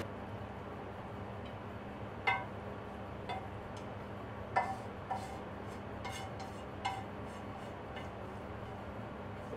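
Kitchen utensils clinking lightly against tableware: about eight irregular sharp clinks, each with a brief ring, over a low steady hum.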